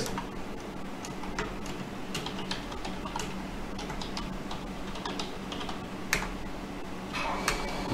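Typing on a computer keyboard: irregular key clicks coming in short runs.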